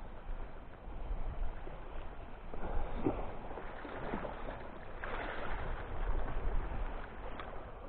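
Sea water lapping and splashing against a small boat, with wind on the microphone. About three and four seconds in, two short sounds slide down in pitch.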